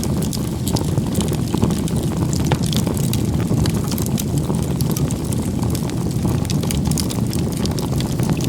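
Wood fire crackling and popping in many short, sharp snaps over a steady low rumble.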